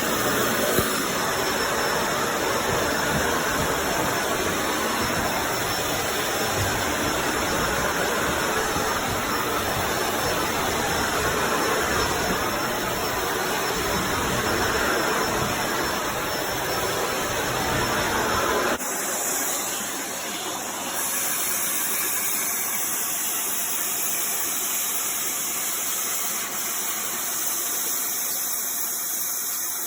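Upright vacuum cleaner running steadily, a motor rush with a high whine. About two-thirds of the way through its low rumble drops out suddenly and the sound changes character.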